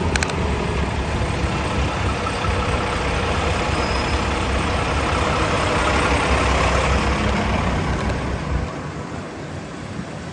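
Motor vehicle noise: a steady engine and road rumble that drops off sharply about nine seconds in.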